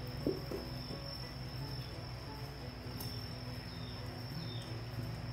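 A steady, high-pitched insect trill over a low steady hum, with a short knock about a third of a second in.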